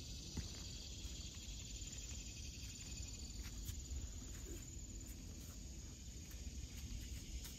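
Faint outdoor ambience: a steady high hiss over a low rumble, with a few faint scattered ticks.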